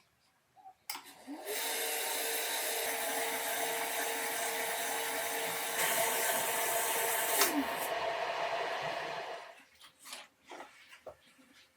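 Small electric blower switched on with a click, its motor spinning up and then running with a steady rush of air. About six seconds later the motor winds down and the air dies away, followed by a few light taps.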